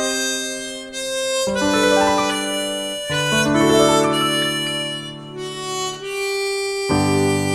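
Harmonica playing a slow ballad melody in long held notes and chords, changing every second or two.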